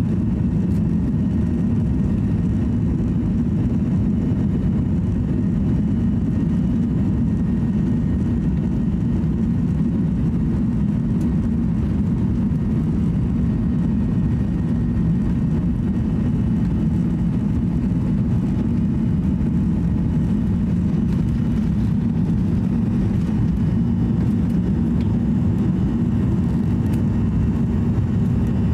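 Boeing 737-800 airliner on its takeoff roll, heard inside the cabin: the jet engines run steadily at takeoff power over a deep rumble, with faint steady whine tones above, until the aircraft lifts off near the end.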